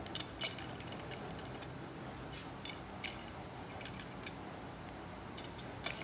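Scattered light metallic clicks and taps of hand tools and bolts on a Sea-Doo Spark engine being reassembled, irregularly spaced, with the sharpest about half a second in and again near the end.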